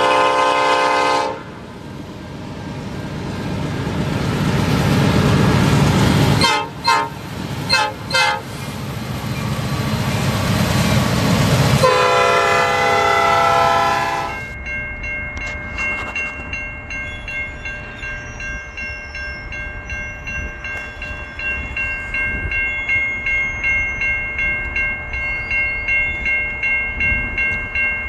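Freight locomotive horn blowing at a grade crossing over the rumble of a passing train: a long blast, a few short sounds about 7 seconds in, then another long blast that stops about 14 seconds in. After that a railroad crossing bell rings steadily, about two strikes a second, as another train approaches.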